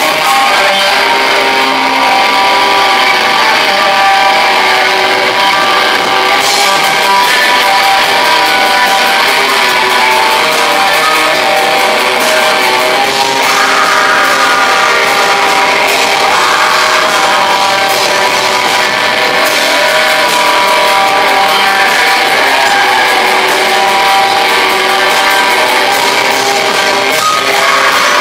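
Black metal band playing live, loud and unbroken: distorted guitars holding chords over drums with a constant wash of cymbals, recorded thin in the bass.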